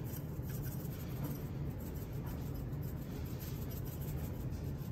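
Hand-held seasoning grinder being twisted, a dry scratchy grinding made of faint repeated ticks, over a steady low hum.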